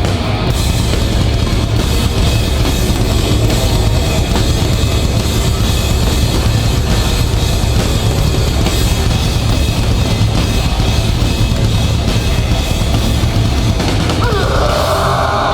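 Live hardcore band playing a loud, heavy passage with drum kit prominent and no vocals; a shouted vocal comes in near the end.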